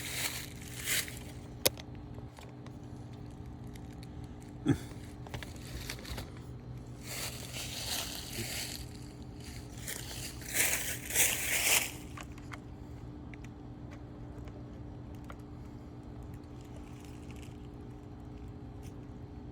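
Handling noise from a trail camera's case being worked by hand: scraping and crunching with a few sharp clicks and a thump, the loudest scraping near the middle, then a faint steady hum.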